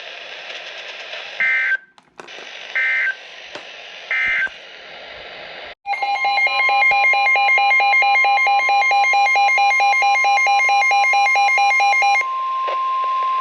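NOAA Weather Radio alert signals over light radio hiss. First come three short bursts of SAME digital data tones, about a second and a half apart, marking the end of the previous warning message. Then the steady 1050 Hz warning alarm tone starts, with a rapid pulsing electronic alarm beep over it for about six seconds; after that the steady tone continues alone.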